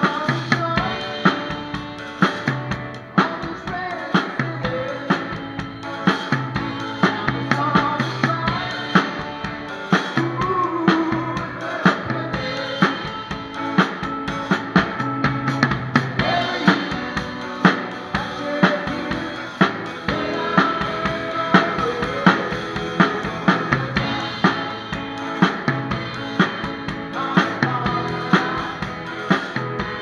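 A rock band playing, with the drum kit close up: bass drum and snare strokes keep a steady beat, with cymbals, under electric guitars.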